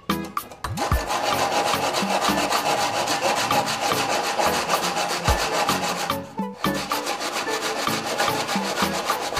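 Handsaw crosscutting a pine board, its teeth rasping through the wood in quick, steady back-and-forth strokes, with a brief pause about six seconds in.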